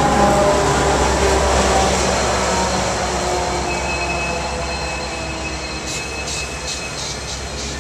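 Amtrak Surfliner bilevel passenger train pulling out along the platform, its rolling wheel noise and low diesel rumble fading steadily. A faint high whine comes from the wheels, and light regular clicks follow near the end.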